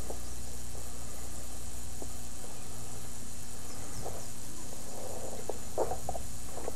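Steady low hum and hiss from an old camcorder's recording, with a few faint clicks, and a brief cluster of rustles and clicks about five to six seconds in.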